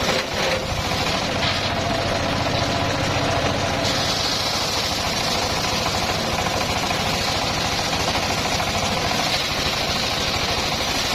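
Engine powering a homemade circular sawmill running steadily with a rapid even beat; a higher hiss joins about four seconds in.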